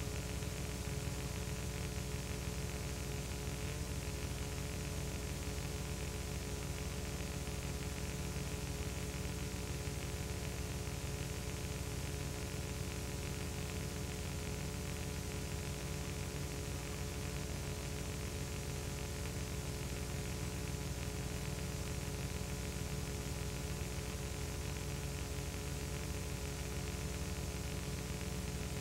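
Steady electrical hum with a layer of hiss and static, the level and tones never changing: the noise floor of a film transfer, with no sound from the filmed scene.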